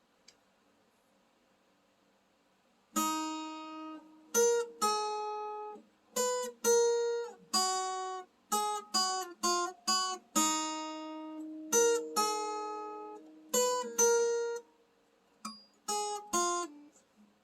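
Acoustic guitar picked one note at a time, a stepping melody over a ringing bass note. It starts about three seconds in, pauses briefly near the end, then plays a few more notes.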